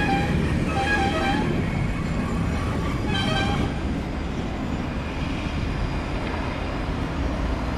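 Traffic heard from a moving scooter: a steady rumble of road and wind noise, with vehicle horns honking about a second in and again about three seconds in.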